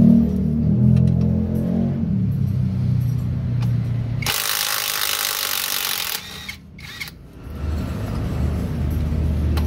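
Cordless impact wrench running in bursts on the flywheel bolts, loosening them to reach the rear crankshaft oil seal. There is a low drone at first, then a harsh, loud rattle for about two seconds in the middle, a short lull, and the low drone again near the end.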